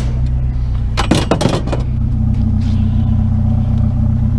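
Vehicle engine idling steadily, with a brief clatter about a second in.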